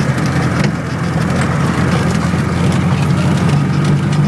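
Off-road vehicle's engine running steadily at low revs while driving a rough dirt track, with scattered light knocks and rattles.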